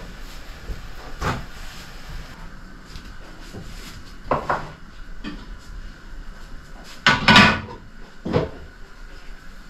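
Kitchen clatter from pots and utensils being handled at a stove: a few separate knocks, a quick pair about four seconds in, and the loudest, a longer rattle, a little past seven seconds.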